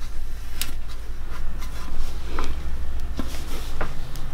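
Hands pressing two hollow clay forms together at a joint filled with slip, with faint rubbing and a few small clicks and squelches as the slip is squeezed out of the seam. A steady low hum runs underneath.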